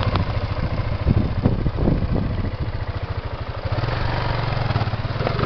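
Dirt bike engine running at low revs with an uneven beat, with a few louder bursts in the first couple of seconds as the bike crawls over loose rocks.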